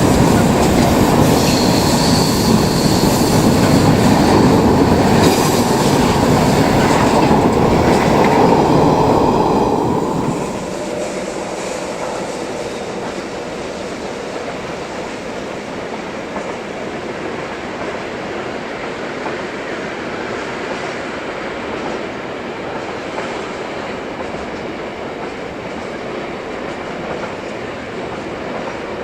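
A train rolling past on the rails, wheels clattering with a faint high wheel squeal. About ten seconds in the train noise falls away, leaving a steady, lower hiss.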